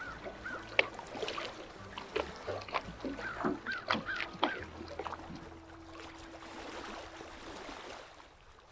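Scattered clicks and knocks of crappie, rods and tackle being handled in a fishing boat, the sharpest about a second in, with a few short high chirps. A low steady hum comes in about five seconds in and fades near the end.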